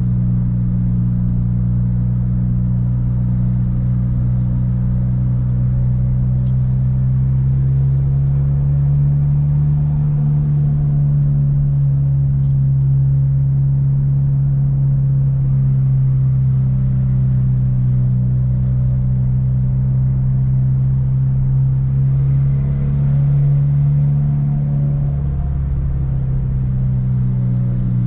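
Car driving, heard from inside the cabin: a steady low engine and road drone that holds its pitch.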